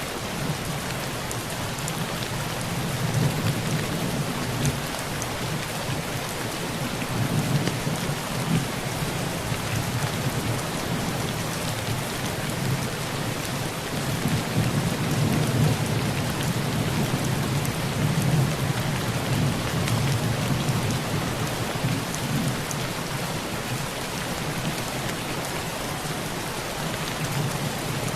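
Heavy rain drumming steadily on a tin roof, with low thunder rumbling and swelling several times underneath.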